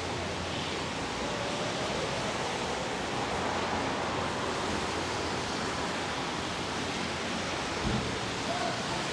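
Pouring rain falling in a steady, even hiss.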